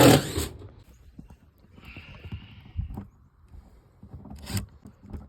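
A new furnace cabinet being slid into place: a loud scrape that stops about half a second in, then scattered knocks and bumps, a short hiss about two seconds in, and one sharp knock near the end.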